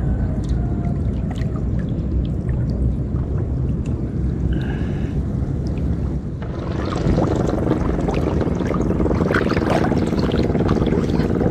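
Water sloshing, then splashing and dripping from about six seconds in as a fishing lift net and a scoop net are raised out of swamp water, over a steady low rumble of wind on the microphone.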